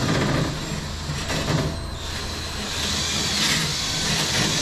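Cordless drill spinning a 400-grit abrasive ball that scrubs across a flat aluminum wing rib, scuffing the metal before priming. The motor's whine wavers up and down as the ball is pressed on and moved about.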